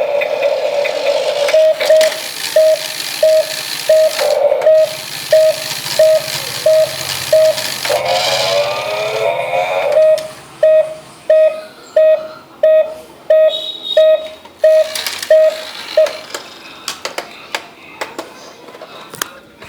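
Electronic sound effects from a toy RC stunt car: a single-pitched beep repeating evenly nearly twice a second, broken about 8 seconds in by a warbling, sweeping electronic sound. The beeps stop about 16 seconds in, followed by a few faint clicks.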